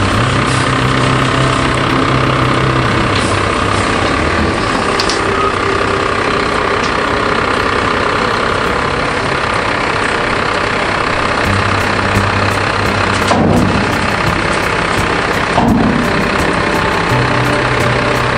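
Diesel dump truck engine running steadily while the truck tips out a load of milled asphalt from its raised bed, creeps forward and lowers the bed. Two short sharp knocks come about two seconds apart near the end.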